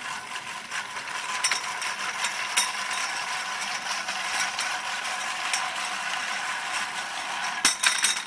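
Manual push reel lawn mower rolling through tall grass: its spinning reel blades whir and clatter against the cutting bar, with the steady clicking of the drive gears. A few sharp clicks come near the end.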